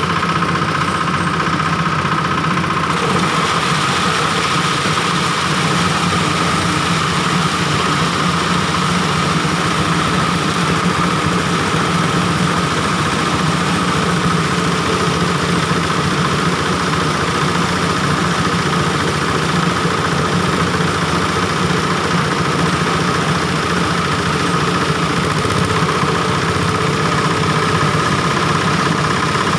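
Oil palm frond chopping machine running at a steady speed: a constant engine hum with a steady high whine.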